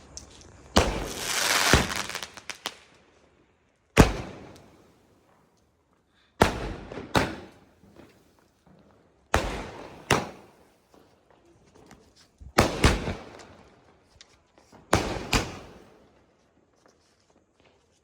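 A 60-shot firework cake firing shot after shot: six groups of sharp bangs two to three seconds apart, mostly a launch bang followed about half a second later by the aerial burst. The first shot, about a second in, carries a crackling hiss that lasts about two seconds.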